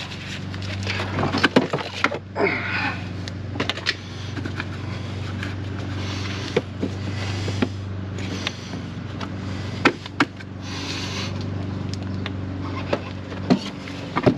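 Scattered clicks, knocks and rustles of hand work on a Jeep's battery box and cabling, with a sharper knock about ten seconds in, over a steady low hum.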